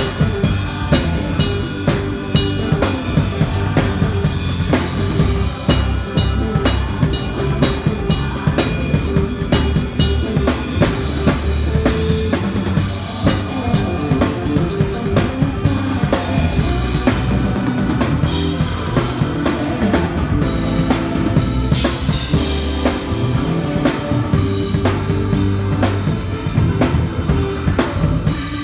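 Odery Fluence drum kit with a metal snare and Orion cymbals played in full groove, with a steady bass drum and snare beat under ringing cymbals, along with the rest of the band holding sustained notes.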